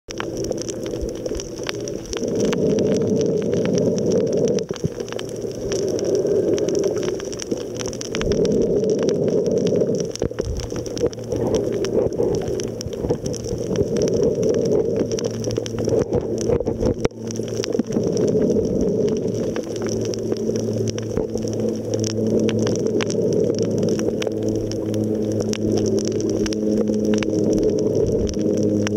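Muffled underwater sound from a submerged camera: water rushing and sloshing in swells every couple of seconds over a steady low hum.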